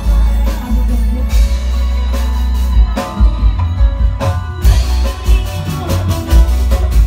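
Live Indramayu reog band music with a heavy bass beat, drums and keyboard, and a woman singing over it through a microphone.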